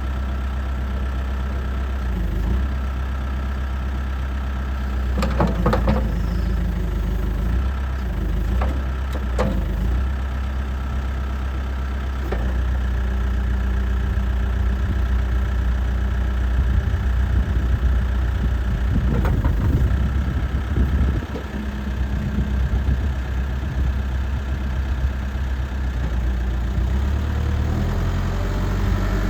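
Case 580 Super M Series 2 backhoe loader's diesel engine running steadily, with a few short metallic clanks about five, nine and twelve seconds in and a rougher burst of knocking around twenty seconds in; the engine note shifts slightly a couple of times.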